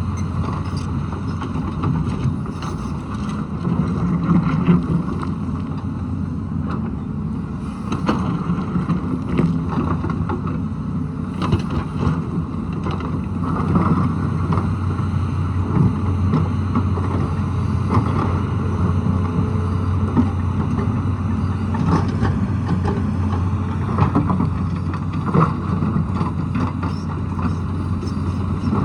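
Tata Hitachi excavator's diesel engine running steadily under working load, with scattered short knocks as it digs into the rocky slope.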